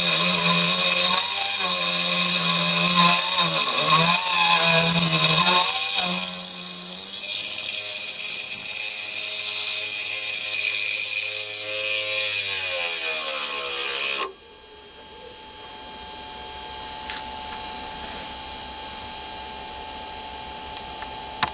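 Machifit 500W ER11 spindle motor whining at speed while its collet-held drill is fed into a metal bar in the lathe chuck. About fourteen seconds in, the lower tones fall in pitch and the whine cuts off sharply, leaving a faint steady hum.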